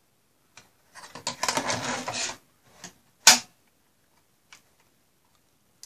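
Metal SATA hard-drive caddy adapter scraping and rattling against the steel optical drive bay of an HP ProLiant Gen8 MicroServer as it is fitted, for about a second and a half. A single sharp clack follows about three seconds in, with a few faint clicks around it.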